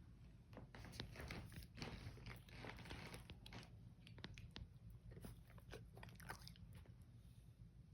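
A dog chewing: faint, irregular crunching clicks.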